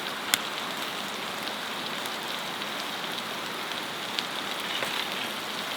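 Beef sizzling in a pan on a wood stove: a steady hiss, with one sharp click about a third of a second in.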